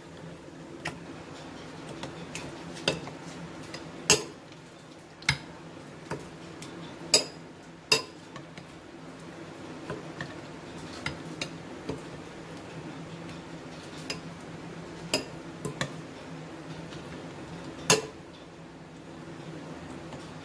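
A metal spoon stirring chicken pieces through a thick yogurt marinade in a glass bowl, clinking sharply against the glass at irregular moments about every second or two. A steady low hum runs underneath.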